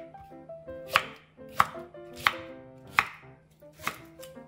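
Chef's knife chopping halved Korean green onion (daepa) stalks against a wooden cutting board, five crisp strokes spaced a little under a second apart.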